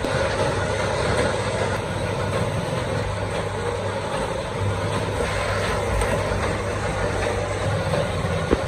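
Belt-driven sheet-metal machine running with a steady mechanical drone, with a single short knock near the end.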